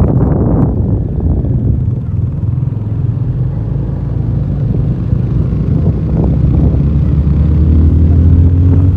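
Motorcycle engine running as the bike rides along a paved road; the engine note gets louder and rises slightly in pitch over the last few seconds as it accelerates.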